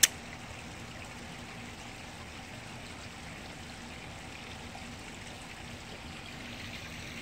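Koi pond water trickling steadily, with one sharp click right at the start.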